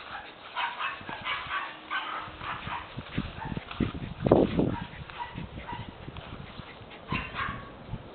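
Puppy yipping and whimpering in short high-pitched bursts, busiest in the first couple of seconds and again near the end, with a brief louder low burst of noise about halfway through.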